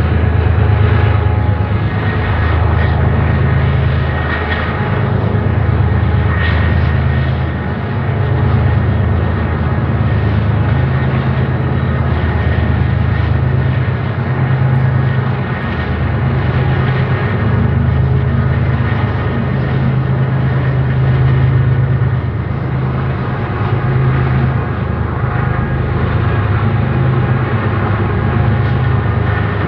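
BNSF freight train's diesel locomotives running past, a loud steady low engine drone that swells and eases slightly.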